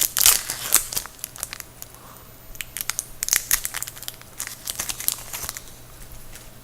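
Trading card pack wrapper being torn open and crinkled by hand: sharp crackling rustles in two spells, the first right at the start and the second a couple of seconds later.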